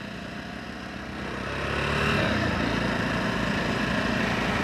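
Two motorcycles riding side by side, heard from on board the Jawa Perak with a Bajaj Avenger 220 alongside: steady engine drone mixed with wind and road noise. The sound swells over the first couple of seconds as the bikes pick up speed, then holds steady.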